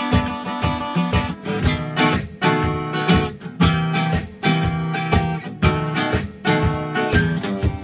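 Solo acoustic guitar playing blues: rhythmic strummed chords with sharp attacks over a held bass note.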